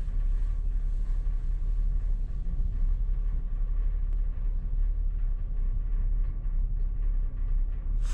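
A vehicle running, a steady low rumble without any sudden sounds.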